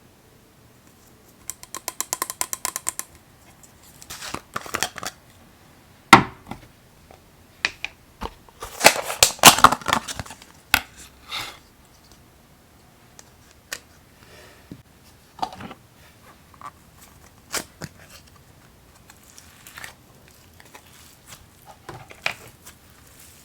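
Slime being handled up close: a quick run of clicks, then scattered sharp pops and crackles, with a dense crackling stretch about nine seconds in.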